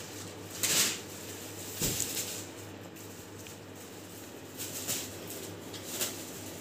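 Thin plastic carry bag rustling and crinkling in short bursts as it is pulled out and handled, the loudest burst just under a second in.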